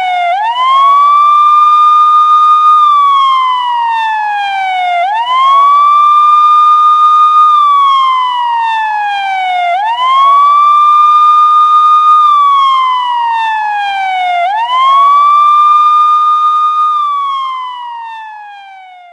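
Police siren wailing: the pitch rises quickly, holds high for about two seconds, then falls slowly, repeating about every four and a half seconds. It fades out near the end.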